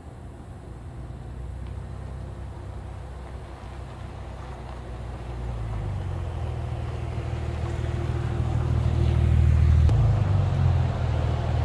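Porsche 997 911's flat-six engine running as the car is driven to warm it up, a low drone that grows louder from about halfway through.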